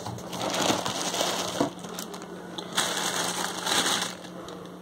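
Cardboard packing box being handled, its flaps and packing rustling and scraping in two spells of about a second each.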